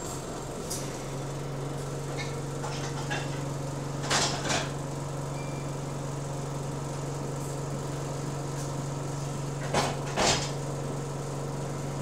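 Diesel bus engine idling with a steady low drone, heard from inside the bus while it stands still. Two pairs of short hisses cut in about four seconds in and again about ten seconds in.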